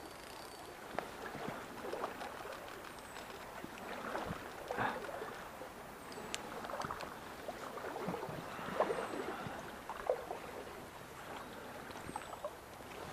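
Light, irregular splashing and swishing of water in a shallow stream, with a few sharp clicks.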